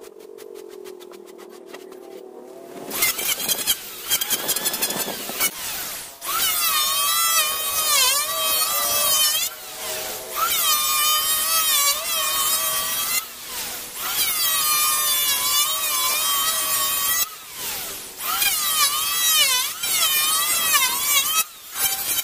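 Electric hand planer shaving a wooden board: the motor hums unloaded at first, then from about three seconds in it cuts in five long passes with short breaks between them, its whine wavering in pitch as the blades bite into the wood.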